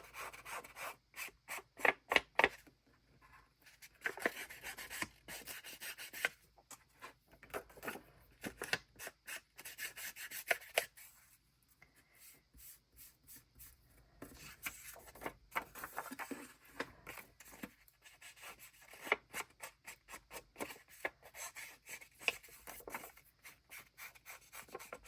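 Ink blending tool rubbed over paper in many short, quick strokes, with a few brief pauses, working ink onto a die-cut piece.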